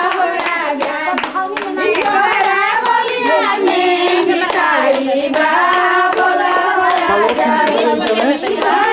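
Several women singing a folk song together, keeping time with steady hand-clapping, about three claps a second.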